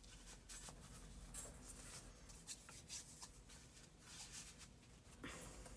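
Faint rustling and sliding of paper and cardstock being handled, as a card is slipped in and out of a paper sleeve's pocket, with scattered brief scrapes.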